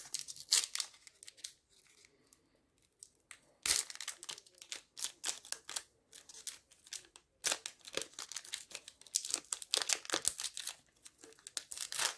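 Wrapper of a trading card pack being torn open and crinkled in the hands, in irregular bursts of crackling.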